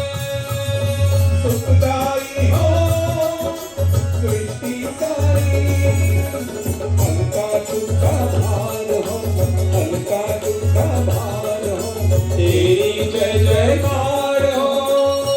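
Devotional Hindu bhajan: a voice singing a melody over a low, steady drum beat.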